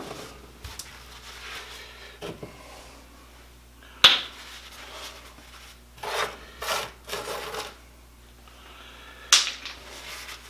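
Workbench handling noises: two sharp knocks, one about four seconds in and one near the end, with scraping and rubbing between them as rock chips and grit are brushed about on a hard countertop.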